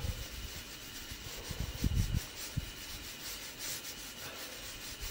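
Hands rubbing together to warm them: a run of dry rubbing strokes over a faint steady hiss from the camp stove heating a pressure cooker, with a couple of soft low thumps about two seconds in.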